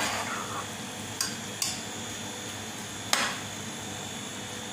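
Metal ladle stirring pork and potatoes in a nonstick pan, clinking and scraping against the pan three times (about a second in, just after, and near three seconds), over a low steady hiss.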